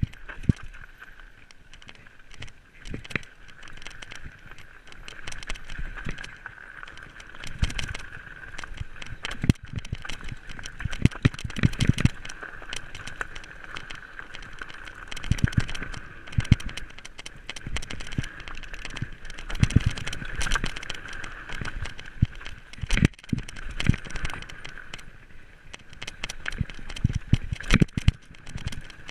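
Fat bike rolling fast down a gravel and dirt trail: tyres crunching over stones and the bike rattling, with irregular knocks as it hits bumps, over a steady high whir.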